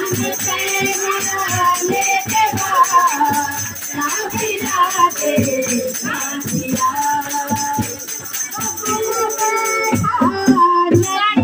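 A group singing a festive folk song to a steady drum beat and rattling percussion.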